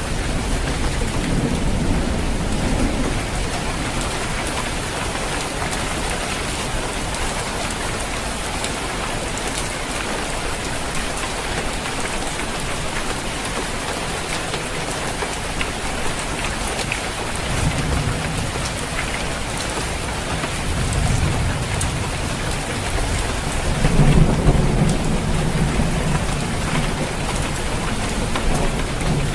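Steady rain falling on a roof, with low thunder rumbling several times, loudest a little before the end.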